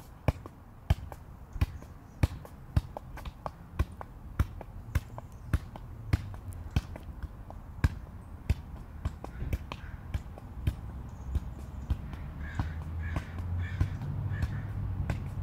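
Soccer ball being juggled with the feet: a sharp thump at each touch, about two a second in a steady rhythm.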